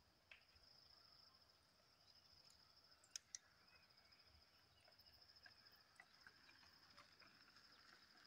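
Near silence with a faint, steady high-pitched insect trill, and two small clicks a little after three seconds in.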